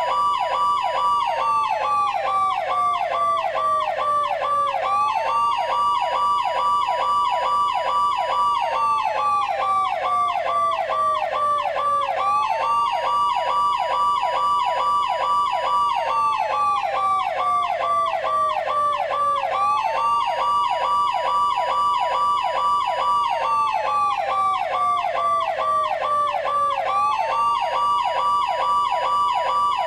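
Siren sound effect of the Machine RS police cars: a wail that rises quickly, holds, then slides slowly down, repeating about every seven seconds, laid over a fast pulsing tone that repeats several times a second. The level stays steady throughout.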